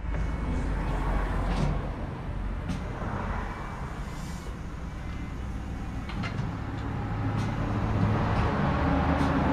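An engine running steadily with a low hum, with a few light clicks and knocks over it.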